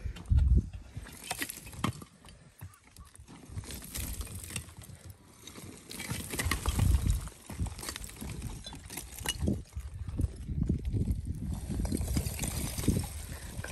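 Gloved hand rubbing and picking at a crumbly chalk rock face: small chalk fragments crackle, click and knock, over an uneven low rumble.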